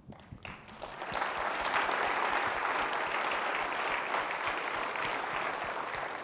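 Audience in a lecture hall applauding: the clapping builds up over the first second, holds steady, and begins to die away near the end.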